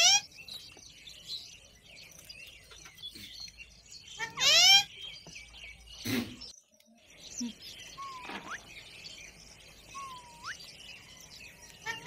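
Rose-ringed parakeets calling: short, loud screeches that rise in pitch, one right at the start and a louder one about four and a half seconds in, with softer chirps and two short rising whistles in between. A single sharp knock comes about six seconds in.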